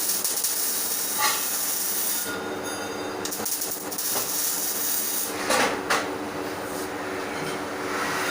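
MIG welding arc hissing and crackling steadily over a steady hum from the welding machine. The arc breaks off for about a second, two and a half seconds in, then strikes again.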